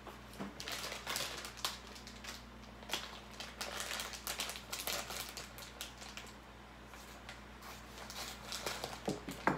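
Scissors snipping open a plastic packet, with the packet crinkling as it is handled: a dense run of small crackles and rustles that thins out past the middle and picks up again near the end.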